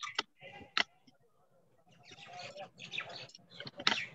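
Computer mouse clicking a few times as pen-tool anchor points are placed, with birds chirping in the background.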